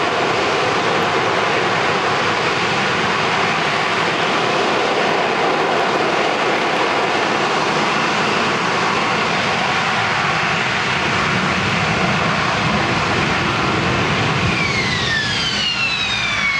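Harrier jump jet's Rolls-Royce Pegasus vectored-thrust turbofan running loud and steady at hover thrust as the jet hovers and sets down vertically. Near the end a high whine slides down in pitch.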